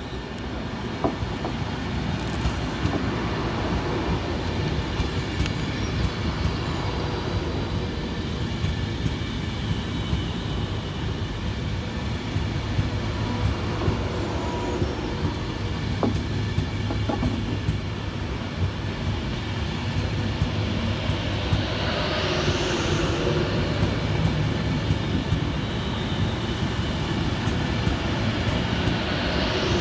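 Avanti West Coast Class 390 Pendolino electric train passing slowly at the platform edge. Its wheels run steadily over the rails with a few clicks at the rail joints, growing a little louder near the end.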